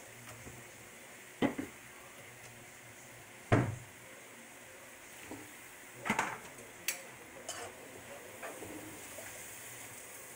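Food sizzling gently in a wok, with a few sharp clunks and knocks against the pan, the loudest about three and a half seconds in, as sliced onions go in on top of the tomatoes and are turned with tongs.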